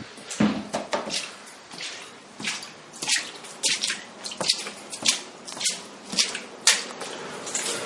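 Water on a flooded floor splashing in short, evenly spaced splashes, about two a second.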